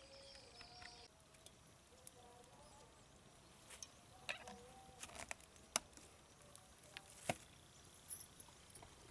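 Quiet open-air background with a few sharp clicks and light knocks from handling a plastic oil bottle and steel cooking pots; the loudest clicks come a little past halfway and about three-quarters of the way through.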